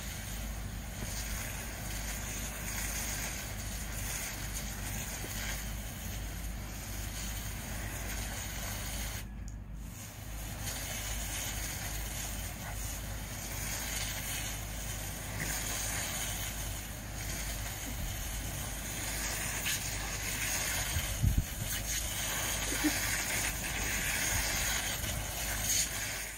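Garden hosepipe spraying water in a steady hiss over a low rumble, with a couple of sharp knocks about two-thirds of the way through.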